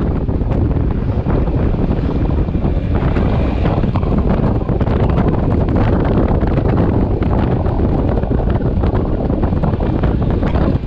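Loud, steady wind noise buffeting the microphone of a moving motorcycle.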